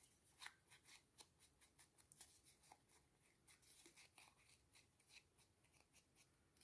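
Faint, irregular little scratches and taps, close to silence: the edges of a sheet of scrapbooking paper being shaded with ink.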